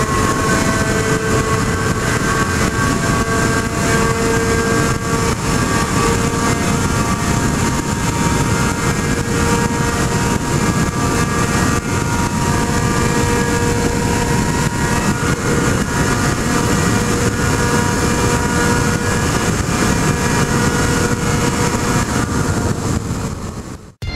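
Honda Hornet 250's four-cylinder engine running while the bike is ridden, a steady high-pitched engine note that holds nearly the same pitch, over wind and road noise. It cuts off suddenly just before the end.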